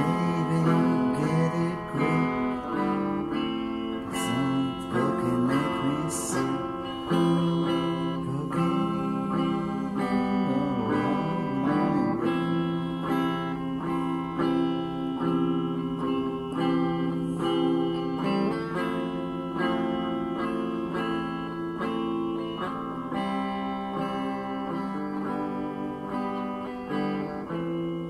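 Guitar playing an instrumental blues passage between verses, picked and strummed chords with gliding, sliding notes about ten seconds in.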